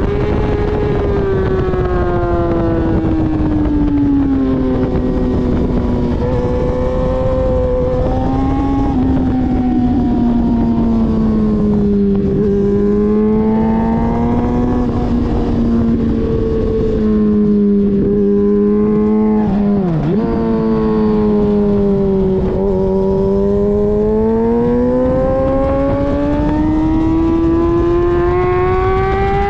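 Motorcycle engine running hard on a racetrack with a steady rushing noise underneath. Its pitch falls over the first few seconds as it slows, holds low and wavers through the middle with a sharp brief drop and recovery about two-thirds through, then climbs steadily near the end as it accelerates.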